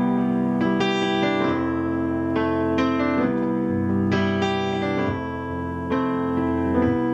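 Yamaha CP-80 electric grand piano, freshly restored, played with both hands: full chords struck about every second over held bass notes, its amplified strings ringing with a bright, slightly twangy tone.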